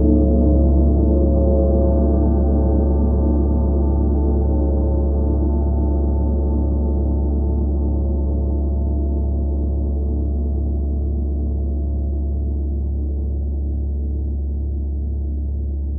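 32-inch Tree of Life gong ringing after a felt-mallet stroke: a deep hum with many overtones that slowly fades, the low tones wavering with a steady pulse.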